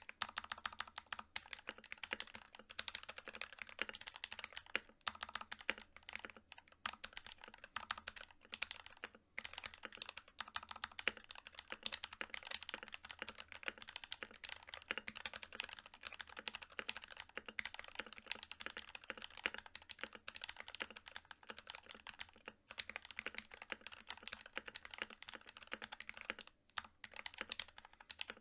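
Fast, continuous typing on an NK65 mechanical keyboard with prelubed NK_ Silk Yellow linear switches and PBT Cherry-profile keycaps, in a polycarbonate case on an aluminium plate. A dense run of key clacks is broken by a few brief pauses.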